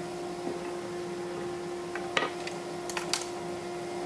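A steady background hum, with a few light clicks and knocks between about two and three seconds in as a wooden board and the table saw's fence are handled.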